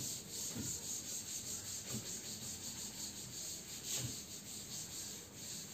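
Board eraser rubbing chalk off a blackboard: a soft, continuous scrubbing sound made of repeated wiping strokes.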